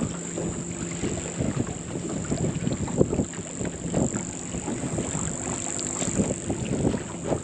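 Wind on the microphone and small waves slapping against the hull of a fishing boat, in short irregular splashes, over a faint steady low hum.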